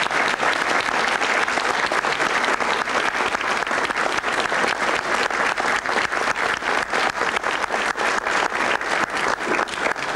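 Audience applauding steadily, with single claps from close by standing out from the rest.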